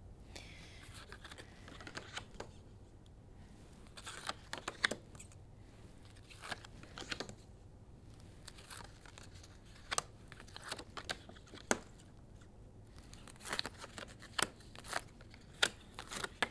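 Paper word strips being handled and put up on a whiteboard: faint, irregular rustling and crinkling with short taps as each strip is pressed into place, busier in the second half.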